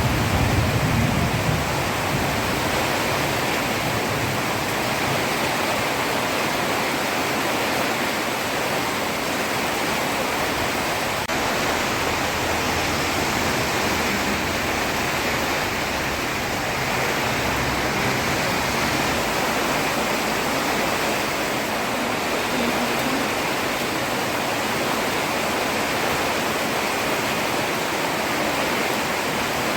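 Heavy rain falling steadily on a road, a dense, even hiss. There is a brief low rumble at the very start.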